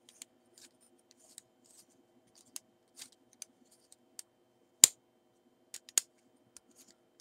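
Small metallic clicks and light scrapes from a Kiev 4 camera's bayonet mount being turned by hand on its thread, which now runs freely without catching. There is one sharp click a little before five seconds in, and a couple more about a second later.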